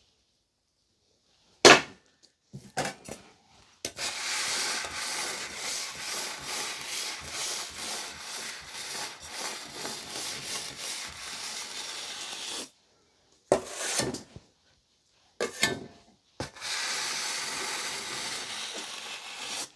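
A metal cake scraper or spatula scraping buttercream in two long, even passes, with a few sharp knocks of tools against the cake board or bowl between them.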